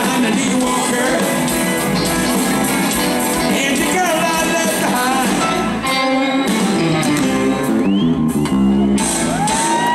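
Live rock band playing at full volume: electric guitars, bass and drums, with singing and shouts. A run of short repeated chords comes near the end, then a long held note starts.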